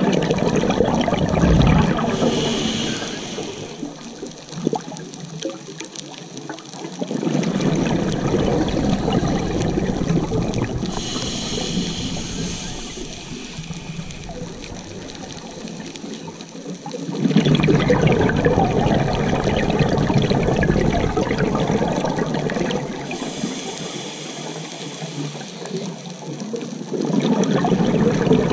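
Scuba diver breathing through a regulator underwater: a short hiss on each inhale, then a longer stretch of bubbling as the exhaled air escapes, about three breaths.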